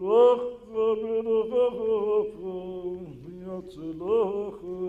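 A man singing a cantor-style chant into a microphone, with long drawn-out notes and wavering ornaments on them.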